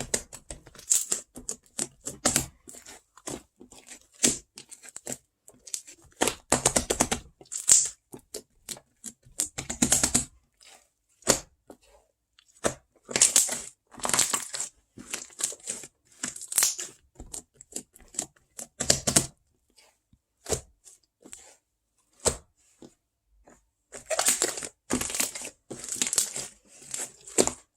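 Close-miked crinkling and rustling, as of paper or plastic being handled and crumpled, in irregular bursts with short pauses between them.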